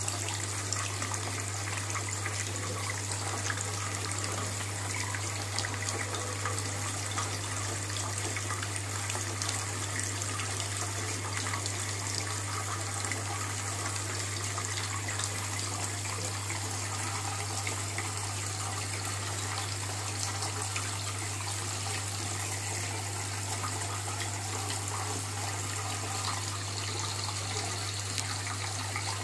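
Steady rush and trickle of water circulating in an aquarium, with a constant low hum underneath.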